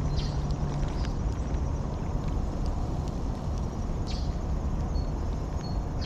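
Wind rumbling steadily on the microphone, with a few faint, short high chirps.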